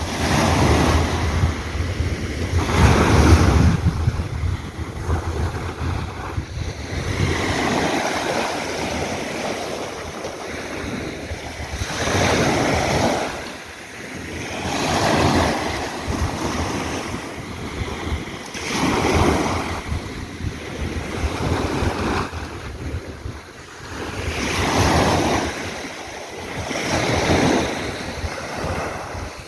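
Sea waves breaking and washing on the shore, the surf swelling and ebbing every three or four seconds. Wind rumbles on the microphone, strongest in the first several seconds.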